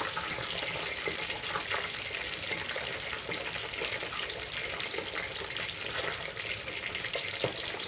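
Whole mujair tilapia deep-frying in hot oil in a wok: a steady sizzle full of fine crackles and spits.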